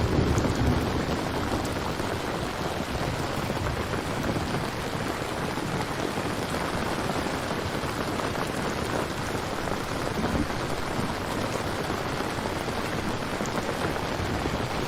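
Steady rain falling, an even hiss of drops, with a low rumble fading out about a second in.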